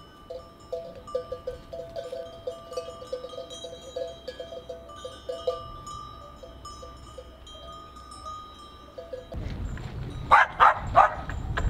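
Livestock bells on a grazing flock clanking and ringing irregularly, with ringing strokes at a few steady pitches. Near the end a dog barks several times in two quick groups, louder than the bells.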